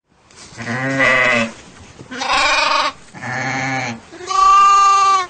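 Sheep bleating four times in a row, the last bleat higher-pitched and steadier than the first three.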